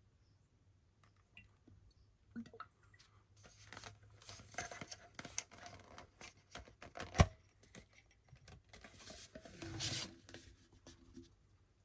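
Whisky packaging being handled and opened by hand: scraping, rubbing and rustling of the box, with one sharp knock about seven seconds in.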